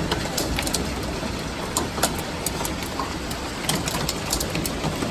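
Hailstorm: a steady dense roar of hail and rain striking surfaces, pierced by many sharp clicks of individual hailstones hitting.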